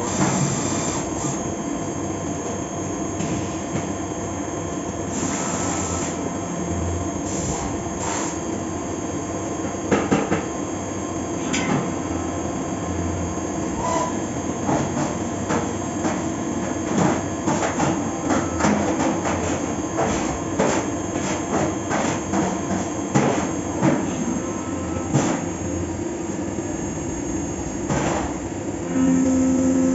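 Fagima Jazz M 5-axis CNC milling machine cutting a part: a steady whine from the running machine, with many sharp ticks and scrapes from the cutting. Near the end a louder steady tone sets in.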